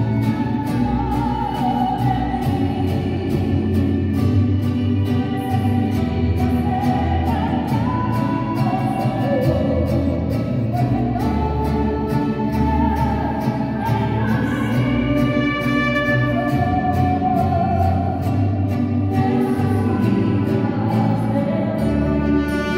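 Choir singing slow, sustained melodic lines over steady low accompaniment.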